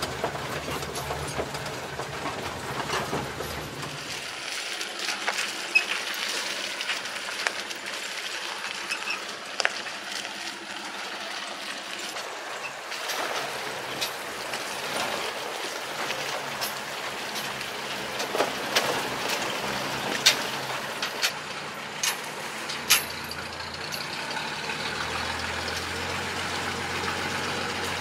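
Old ZIL-164 dump truck's inline-six petrol engine running as the truck drives over rough, rutted ground, with a steady engine note for the first few seconds and sharp clanks and knocks from the truck's body scattered throughout.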